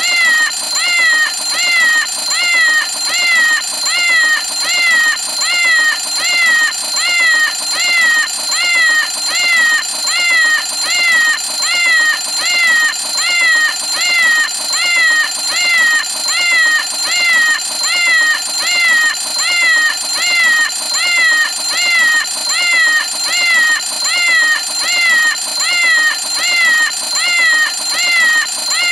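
Meow o' Clock cartoon alarm clock going off: a short, falling meow repeats evenly, a bit more than once a second, over a steady high-pitched ring.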